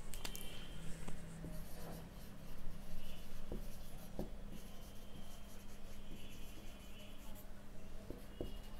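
Felt-tip whiteboard marker writing on a whiteboard: soft scratching strokes with a few short, high squeaks.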